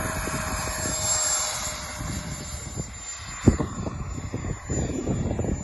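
Freewing F-35 Lightning II model jet's 70 mm electric ducted fan whining steadily in flight, with a rushing sound that fades about halfway through. Wind buffets the microphone in the second half, with one sharp thump about three and a half seconds in.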